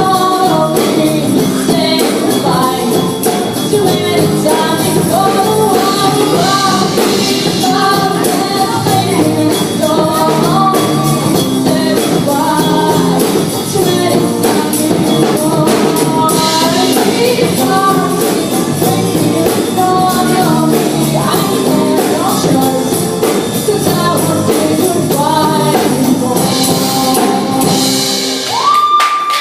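A band playing a song with singing over a steady beat; the backing thins out near the end, leaving a held note.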